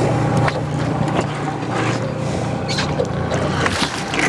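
Fishing boat's motor running steadily at low speed, with water splashing and light knocks as a Chinook salmon is scooped into a landing net beside the hull, the splashes heaviest near the end.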